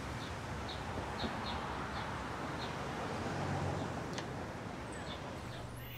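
Outdoor ambience in a TV drama soundtrack: a steady background hiss with a low hum, and small birds chirping briefly now and then.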